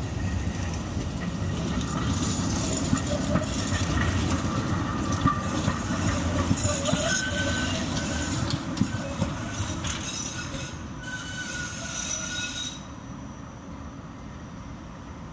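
An articulated Oslo tram passing close by on its rails, with a low rumble from the running gear and high, wavering wheel squeal from the track. It fades quickly about 13 seconds in as the tram moves away.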